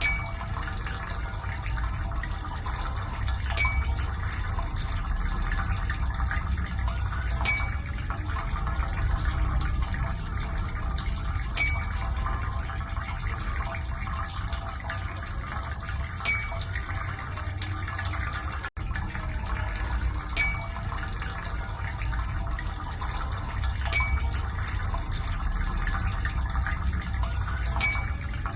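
Ear irrigation: a steady rush of running water, with a short sharp click about every four seconds.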